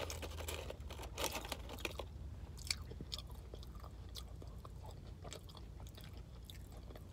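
Close-up chewing of McDonald's french fries: soft, irregular mouth and crunch sounds, busiest in the first two seconds and then sparser. A steady low hum runs underneath.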